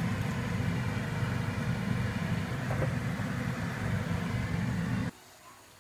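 Steady low rumble of kitchen background noise at the stove, with a faint knock about three seconds in. It cuts off abruptly near the end.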